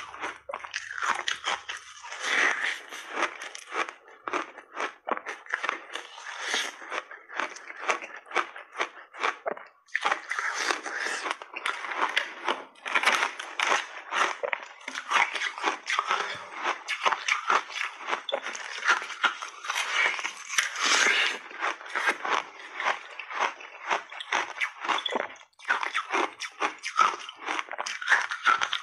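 Red flavoured block ice being bitten and chewed close to clip-on microphones: a dense, almost unbroken run of sharp, brittle crunches as big bites break off and are ground between the teeth, with brief pauses about a third of the way in and near the end.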